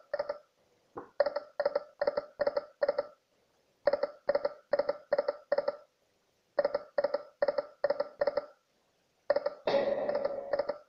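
Ramses II video slot machine spinning its reels: runs of five to seven short electronic beeps about a third of a second apart as the reels stop one by one, three spins in a row with short pauses between them. Near the end a longer electronic jingle sounds.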